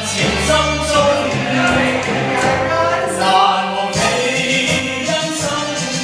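A Chinese karaoke song playing, with voices singing a slow melody together over the backing track.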